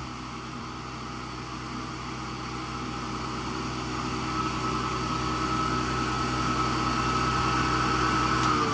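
Hoover Model 28 vacuum cleaner's motor running steadily with a high whine, its belt-driven brush roll turning, during an airflow test; at the very end it is switched off and the whine starts to fall in pitch as it spins down.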